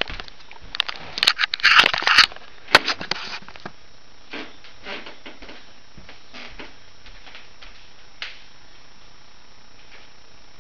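Close handling noise: a run of clicks, scrapes and rustles, heaviest in the first few seconds. After that there are a few faint knocks and then only a steady hiss.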